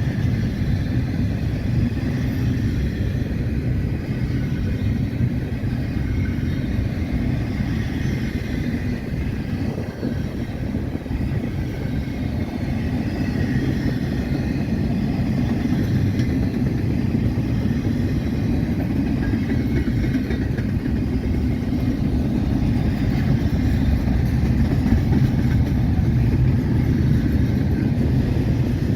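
Freight train rolling past: a steady low rumble of wheels on rail.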